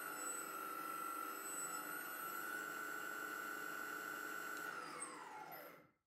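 Electric skateboard motor spinning with a steady whine, driven from the handheld remote. Near the end the whine falls quickly in pitch as the motor slows almost to a stop, then it cuts off.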